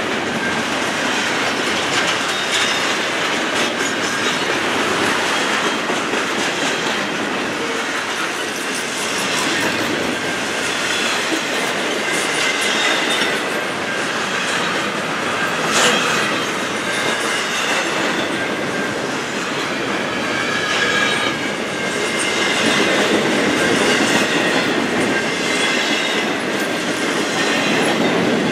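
Double-stack intermodal well cars of a long freight train rolling past close by: a steady rumble and clatter of steel wheels over the rails, with high wheel squeal coming and going and a single sharp knock about halfway through.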